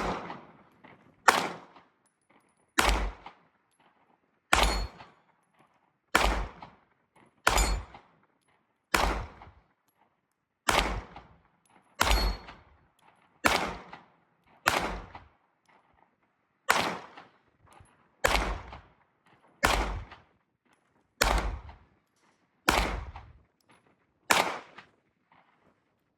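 Glock 17 Gen 5 9mm pistol fired seventeen times in slow, steady succession, about one shot every second and a half, emptying its 17-round magazine.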